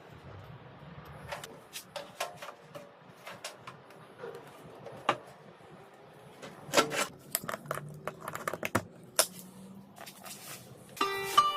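Irregular light clicks and knocks of hands and tools working on a microwave's metal and plastic parts. Plucked-string music comes in near the end.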